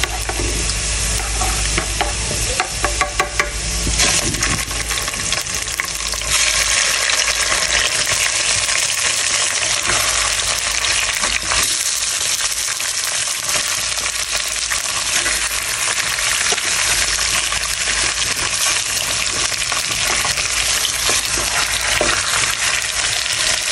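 Shallots and garlic sizzling in hot oil in a stainless-steel pot, with chopsticks tapping and scraping the pot in the first few seconds. The sizzle grows louder about six seconds in and stays steady, with pieces of catfish frying in the oil.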